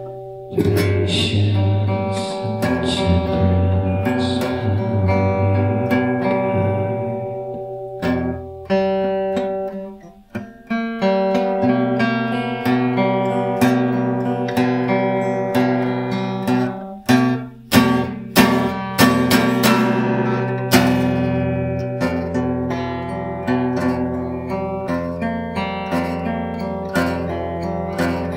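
Acoustic guitar playing a blues tune: strummed chords, with a brief break about a third of the way through and a run of sharp, separate strums around two-thirds in.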